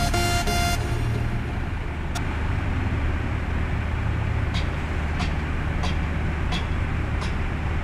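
Music cuts off about a second in, leaving a loaded dump truck's diesel engine running low and steady as the truck moves off slowly. Near the end there is a light tick that repeats about every two-thirds of a second, five times.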